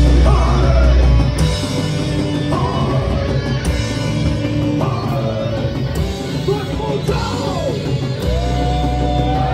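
Heavy metal band playing live: electric guitars, bass guitar and drums, with sliding notes and one long held high note near the end.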